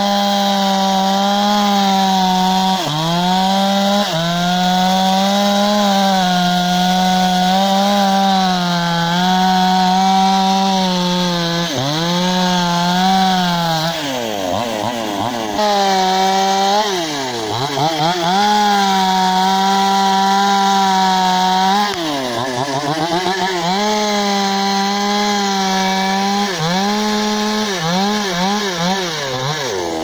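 Two-stroke petrol chainsaw held at full throttle, cutting through tree branches and trunks. The engine note sags and drops off several times between or during cuts, then climbs back up to a steady high pitch.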